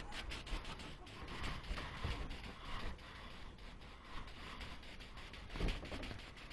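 Faint, irregular rubbing and scraping as black paint is applied to a metal sign, with a soft knock or two near the end.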